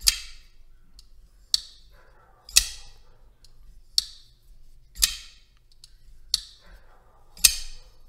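Koenig Arius folding knife's blade being snapped open and shut over and over: about seven crisp metallic clicks, roughly one every second or so. The blade drops shut under a strong detent with a fast, guillotine-like closing action.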